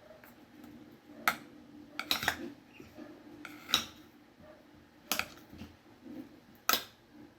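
A knife chopping a banana: about six sharp, irregular knocks of the blade coming down on the surface beneath, with the clatter of kitchen utensils.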